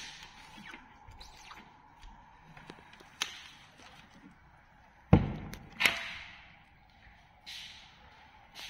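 Manual screen printing: a squeegee scraping plastisol-type ink across the mesh of a wooden-framed screen, with small ticks. A little past the middle come two loud, sharp knocks about a second apart as the screen and squeegee are handled.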